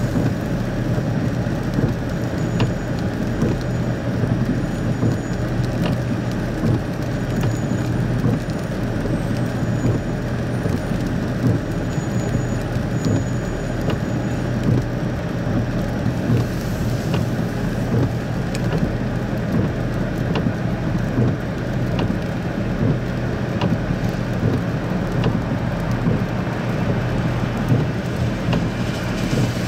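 Truck engines running steadily, a low hum, with rain falling and scattered faint ticks of drops.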